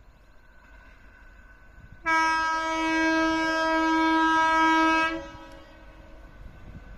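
WAP4 electric locomotive's air horn giving one long blast of about three seconds as the train approaches, several steady tones sounding together, starting about two seconds in and cutting off sharply.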